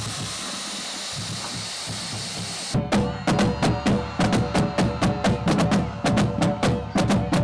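A steady hissing rush for about the first two and a half seconds, then a marching drumline of Pearl marching bass drums and snare drums breaks into a cadence, with sharp unison strikes about three times a second.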